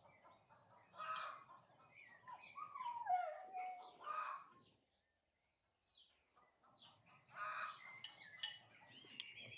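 Birds chirping and calling faintly in short scattered bursts, with a near-silent gap in the middle.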